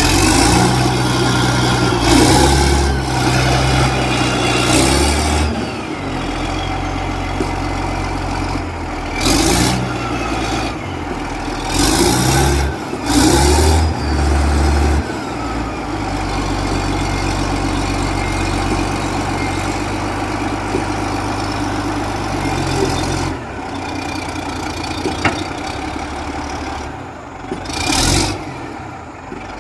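Caterpillar D8R bulldozer's diesel engine running steadily, with several short louder surges.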